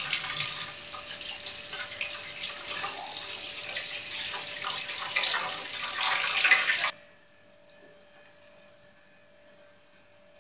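Tap water running into a stainless steel sink and splashing over an aubergine being washed by hand. It cuts off suddenly about seven seconds in, leaving only a faint steady hum.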